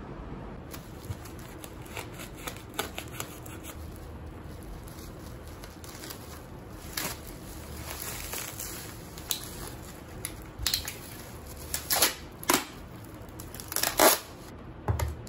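Plastic bubble wrap crinkling and rustling as it is pulled off tins of luncheon meat by hand. There are scattered crackles at first and several louder crackles near the end.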